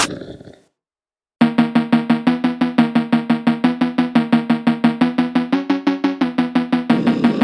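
Instrumental background music: the track fades out, breaks off into silence for about a second, then comes back with fast, evenly pulsed notes over a steady beat.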